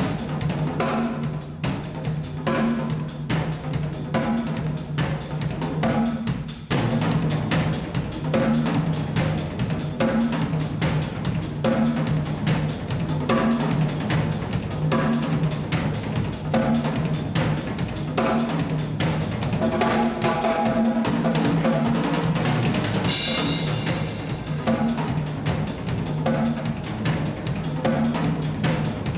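Drum kit played solo: a fast, dense run of snare, tom and bass drum strokes, with a cymbal crash ringing out about two-thirds of the way through.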